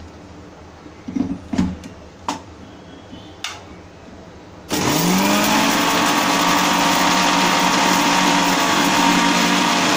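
A few knocks as a steel mixer-grinder jar is lidded and set on its base. About halfway through, a Preethi mixer grinder's motor switches on, its pitch rising briefly as it spins up, then runs loud and steady, dry-grinding dried red chillies.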